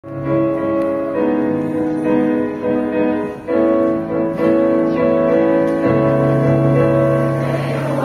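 Keyboard playing a slow piano introduction of held chords, changing every second or so.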